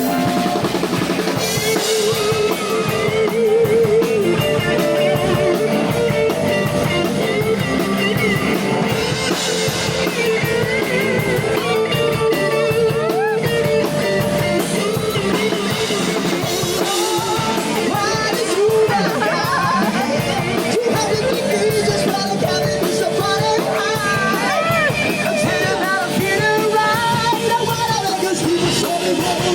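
A rock band playing a song live, with drum kit, guitar and a wavering lead melody over a steady beat.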